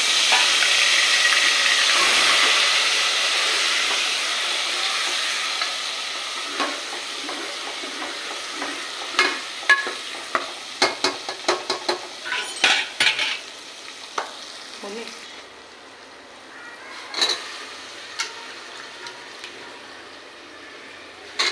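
Chopped tomatoes sizzling in hot oil in an aluminium pressure cooker, loud at first and dying down steadily. From about nine seconds in, a metal spoon stirs and clicks against the cooker's sides, with a few more knocks later.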